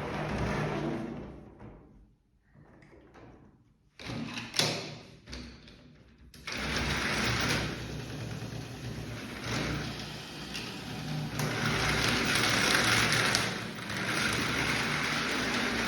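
Indian Railways passenger train running at speed: a steady rushing noise with a low rumble that cuts in suddenly about six seconds in, after a quieter stretch with a few knocks.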